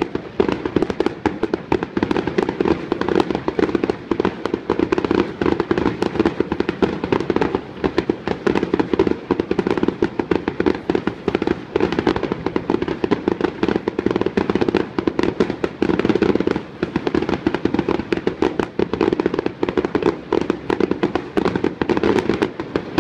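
Fireworks display: a dense, unbroken barrage of rapid bangs and crackles from aerial shells bursting overhead, which stops near the end.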